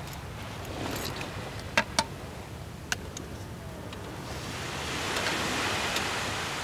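Surf washing up the beach: a wave swells up from about four seconds in and peaks near the end, over a steady low rumble. A few sharp clicks come earlier, around two and three seconds in.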